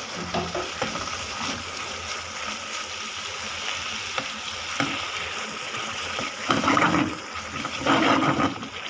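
Thick milk mixture, cooked down nearly to khoya, sizzling in a nonstick pan while a silicone spatula stirs and scrapes through it, with two louder stretches of stirring in the second half.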